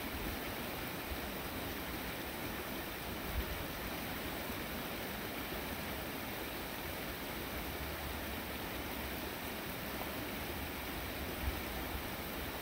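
A creek flowing steadily over a rocky bed, an even rush of water. Two brief low thumps stand out, about a third of the way in and near the end.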